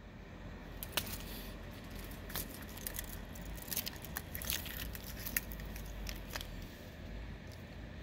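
Keys and key fobs on a ring clinking and rattling in a hand: a scattering of small faint clicks and taps.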